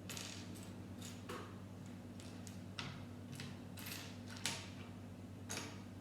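Small plastic Lego pieces clicking and rattling at irregular moments as hands sort through them, over a steady low hum.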